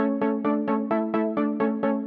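Electronic intro music: short repeated chords on an even pulse of about four to five a second, the harmony shifting briefly near the middle.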